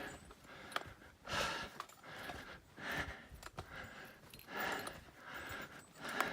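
A man breathing hard, a loud breath about every second and a half, with a couple of faint clicks in between.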